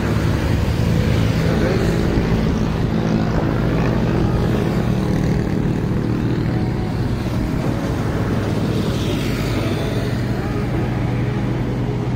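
Road traffic going by: a steady low engine hum over a continuous noisy rumble of vehicles.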